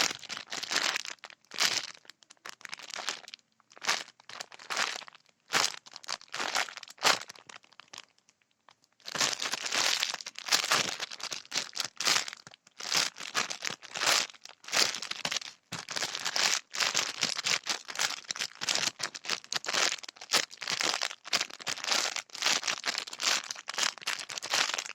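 Crinkling and crackling as squishy toys are handled and squeezed: scattered crinkles at first, then near-continuous crinkling from about nine seconds in.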